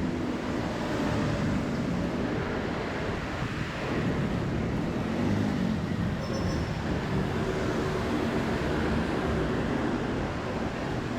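Steady city road traffic: vehicle engines running and passing on a busy street, an even rush of noise with low engine tones that swell and bend as vehicles go by.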